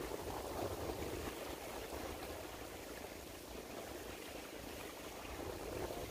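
Steady outdoor ambience at a shoreline at night: an even low rushing noise with no distinct events.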